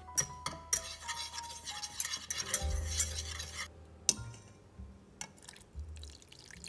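Egg yolk and cornstarch stirred briskly in a nonstick saucepan: a rapid scraping for about three and a half seconds. A metal mesh sieve clinks against the pan just after four seconds in, and orange juice is poured through the sieve near the end.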